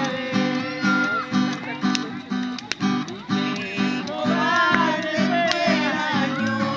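Acoustic guitar strummed in a steady, even rhythm, accompanying a hymn between sung lines, with faint voices over it.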